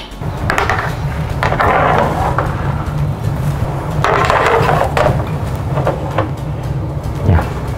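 Metal baking trays scraping as they slide onto oven racks, several times, over a steady low hum.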